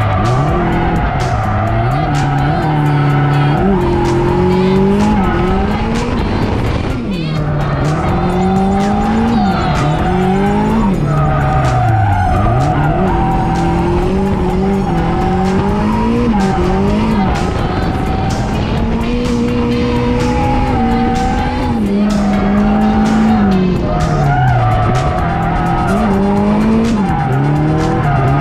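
Turbocharged drift car's engine revving up and down in repeated swells while the car is drifted, with tyres squealing, heard from inside the cabin.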